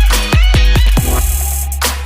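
Loud electronic dance music with a heavy deep bass and punchy drum hits that drop quickly in pitch, about three a second. About halfway through the hits stop for a moment under a sustained hiss.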